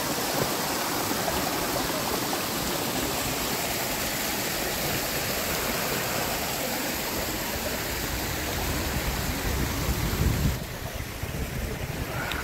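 Small mountain stream cascading over rocks into a shallow pool: a steady rush and splash of water. It turns quieter about ten and a half seconds in.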